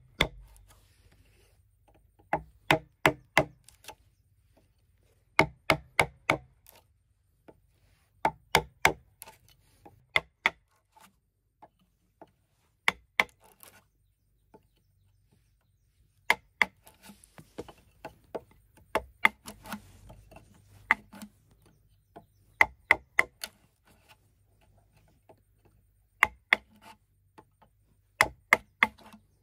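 Bamboo being chopped: sharp, ringing strokes in quick bursts of three to five, with short pauses between bursts.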